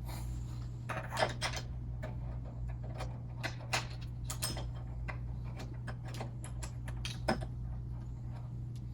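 Scattered light clicks and ticks of a door lockset's small metal retaining nut being fitted and threaded on by hand, over a steady low hum.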